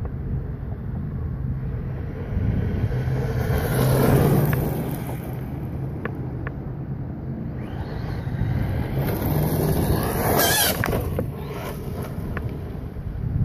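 Traxxas Rustler 4x4 electric RC truck driving hard across gravel, its motor whining and tyres crunching on the loose stones. It comes louder and closer twice, about four seconds in and again around ten seconds, with the whine rising and falling as it passes. Wind noise on the microphone runs underneath.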